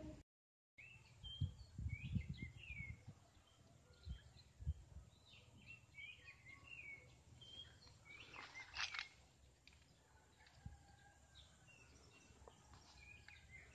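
Small birds chirping outdoors in short repeated calls, with a louder burst of calls about nine seconds in. There are faint outdoor background noise and a few low thuds in the first five seconds.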